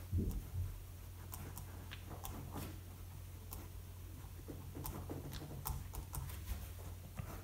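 Pen writing on paper: faint, irregular scratches and light ticks of the pen tip as words are written, over a low steady hum.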